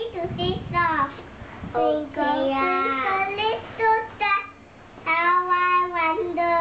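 A young girl singing a tune unaccompanied, in several short phrases with held notes, ending in a long held note near the end.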